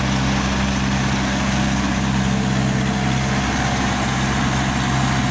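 Scania truck's diesel engine idling, a steady low hum that holds one pitch throughout.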